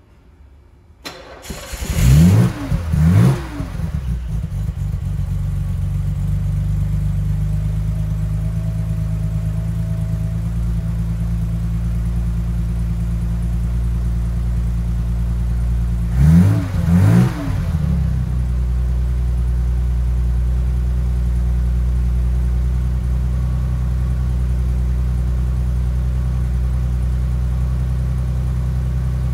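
1972 BMW 3.0CS straight-six starting from cold about a second in, blipped twice straight away, then settling into a steady idle. It is blipped twice more about halfway through and idles on.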